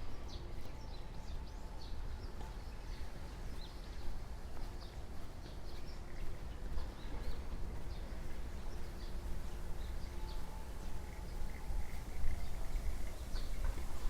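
Small birds chirping in short, scattered high notes over a steady low rumble.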